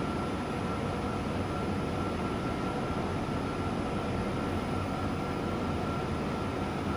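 Wave soldering machine running: a steady mechanical hum and rush with a thin high whine held at one pitch.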